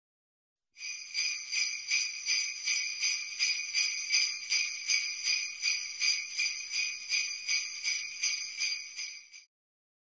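Jingle bells shaken in a steady rhythm, about two or three shakes a second, with a bright high ringing. They start about a second in and stop abruptly near the end.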